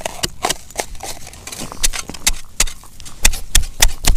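Metal blades of a shovel and an ice chisel chopping into ice and packed snow with quick, irregular strikes that grow harder near the end, breaking open a frozen-over ice-fishing hole.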